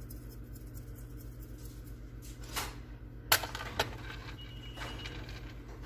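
Faint light taps of a spice shaker being shaken over a stainless steel bowl. About three seconds in comes a sharp knock, then a lighter one half a second later, as the shaker is put down. A steady low hum runs underneath.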